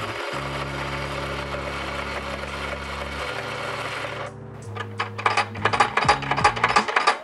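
Quick Mill 060 EVO coffee grinder's 43 mm flat steel burrs grinding espresso beans on a timed double dose, a steady grinding whir that cuts off suddenly a little past four seconds as the timer ends the run. Then a quick, irregular run of clicks and knocks as the portafilter is handled at the grinder.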